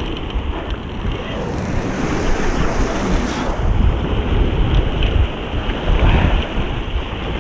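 Wind buffeting the microphone over surf washing up a sandy beach, with a steady loud rush and low rumble.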